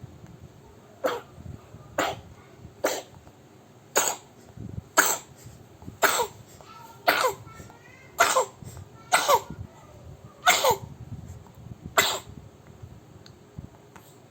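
Repeated short coughs from a sick youngster, about one a second and eleven in all, each dropping in pitch. A faint, wavering whine comes between coughs near the middle.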